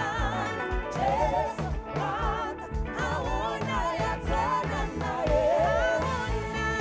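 Live gospel worship song: several singers with vibrato over electric guitar and keyboard, with a steady low beat.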